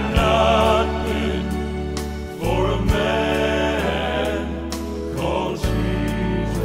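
Southern gospel music: male voices singing held notes in harmony over piano accompaniment and a sustained bass line.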